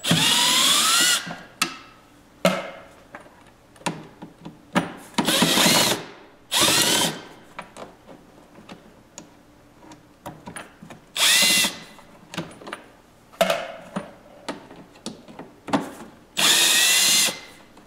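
Cordless drill-driver backing out Phillips-head screws, in several short runs, each a rising whine as the motor spins up, with small clicks of handling between them.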